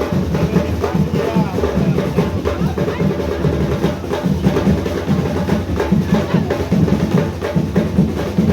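Marching band drums playing a steady driving beat, with snare rolls over bass drum.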